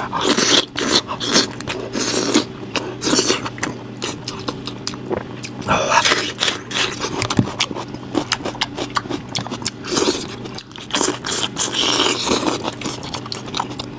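Someone chewing and biting goat-head meat, with frequent short wet clicks and smacks.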